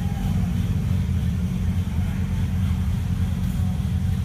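Steady low rumble of off-road 4x4 engines idling, with faint voices in the background.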